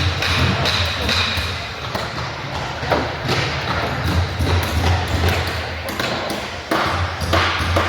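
Busy carpentry work in a large hall: irregular knocks and taps from tools on lumber over a steady low machine hum, with a brief ringing tone about a second in.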